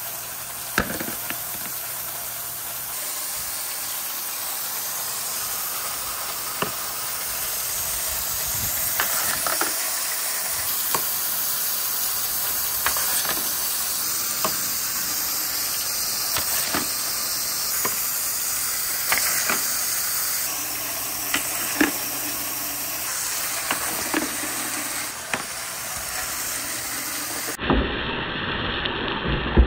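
A steady hiss of a pressurised water jet spraying along plastic rain-gutter chutes, with scattered short knocks of wooden balls striking the plastic.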